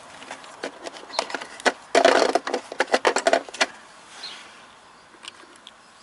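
Small metal clicks and rattles as a motorcycle battery's terminal bolt and cable lug are handled at the post, with a dense, loud clatter from about two seconds in that lasts over a second, then stops.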